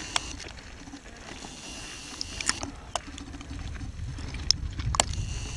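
Wind rumbling on the microphone, heavier in the second half, with a handful of short sharp clicks scattered through.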